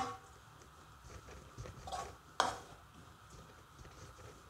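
Wooden spatula stirring grated coconut as it dry-roasts in a nonstick pan: soft scrapes and a few knocks of the spatula against the pan, the loudest right at the start and about two and a half seconds in.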